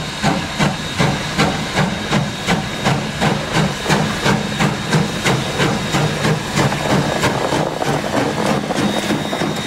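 Steam locomotive No. 7 chuffing as it approaches and draws alongside, about three exhaust beats a second over a steady hiss of steam escaping at the cylinders. Near the end the beats blur into a more even hiss and rumble as it comes level.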